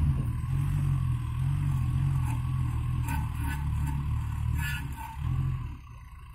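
Off-road 4x4's engine running, its revs rising and falling, then dropping away about a second before the end.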